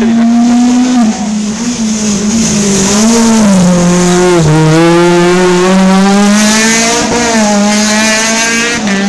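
Small hatchback rally car's engine running at high revs, loud and close, its pitch dipping and rising again several times with throttle and gear changes.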